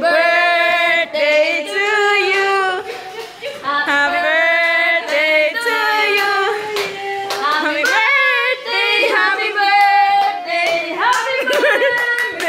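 A birthday song being sung, with long held notes, and hands clapping along.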